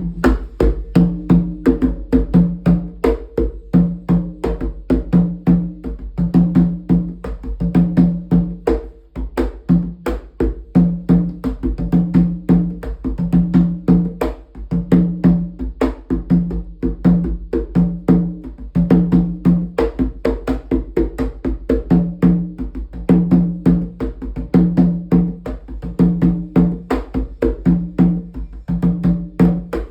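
Rum atabaque, a tall Afro-Brazilian drum with a 26.5 cm goatskin head, playing the Ijexá rhythm: rapid strokes with ringing low open tones that recur in a steady repeating cycle.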